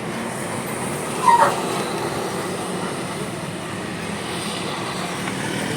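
Heavy road vehicle, most likely a bus, running past with a steady low engine drone and road noise. There is a short, loud, pitched blip about a second in.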